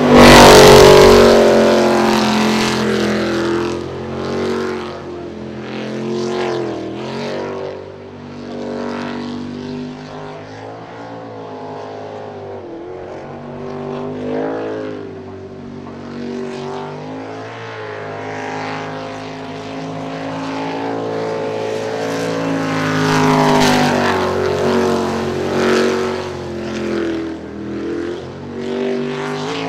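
Jet sprint boat engine running hard, its pitch climbing and dropping again and again as it revs up and backs off. The loudest moment is a sudden blast right at the start, with another loud surge about three-quarters of the way through.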